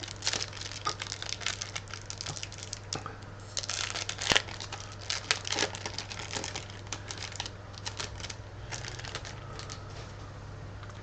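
Crinkling and tearing of a Pokémon TCG blister pack and its foil booster wrapper being opened by hand. A dense run of crackles includes one sharp snap a little after four seconds, and the crackles thin out toward the end.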